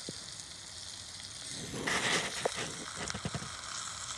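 Food sizzling as it fries in a steel skillet, with a louder swell of sizzle a little under two seconds in, followed by a few short knocks and scrapes of a wooden spatula stirring it.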